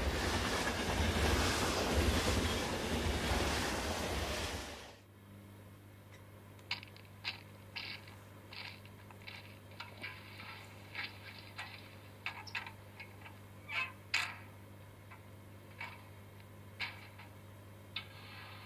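A loud rushing noise that cuts off abruptly about five seconds in, then a low steady hum with scattered short clicks and hisses from an N scale BLI EMD E9 A-B model locomotive set standing on the track.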